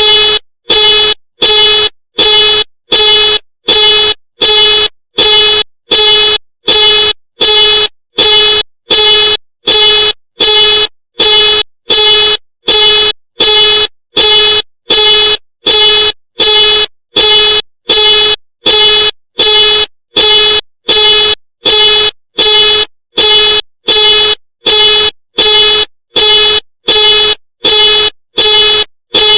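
Ford car alarm sounding the horn in loud, evenly spaced honks, about three every two seconds, with no change in rhythm.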